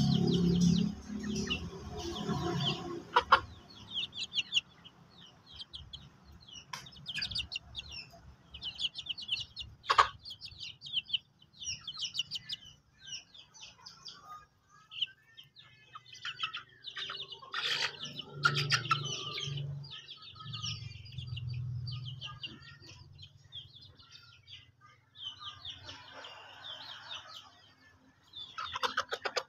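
Chickens clucking over a steady stream of short, high peeps. The low clucks are loudest in the first three seconds and come again about two-thirds of the way through, with a couple of sharp clicks.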